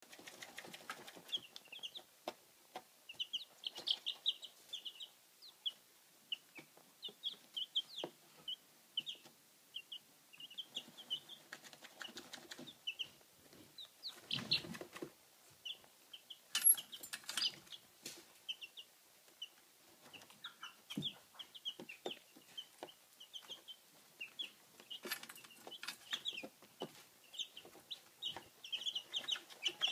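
A brood of chicks peeping: many short, high cheeps overlapping without a break. Scattered soft clicks and rustles come through beneath them, with a louder rustle and a sharp click about halfway through.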